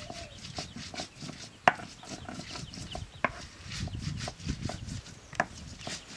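A hand stone grinding dried red chillies on a flat stone slab: a rough scraping rub broken by repeated sharp knocks of stone on stone, the loudest about one and a half seconds in.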